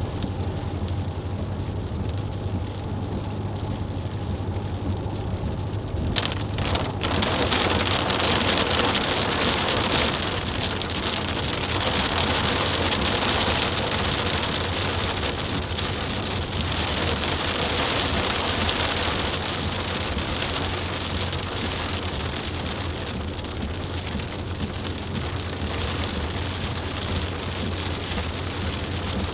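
Rain hitting a moving car, a dense hiss that comes in suddenly about six seconds in, over a steady low drone of the engine and road.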